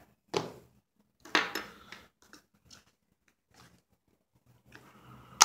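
Everyday-carry gear being handled and moved about on a surface: short irregular rustles and small clicks, with a sharp click near the end.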